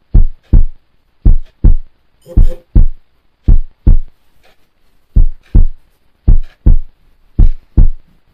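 Heartbeat sound effect: deep lub-dub thumps in pairs, roughly one pair a second, with one longer pause midway. A short buzzing rasp cuts in about two and a half seconds in.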